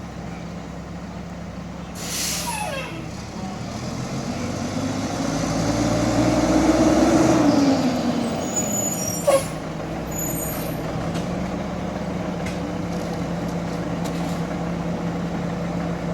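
Diesel garbage truck engine running. It revs up over a few seconds and settles back down. There is an air-brake hiss with a falling squeal about two seconds in, and a short sharp air hiss about halfway through.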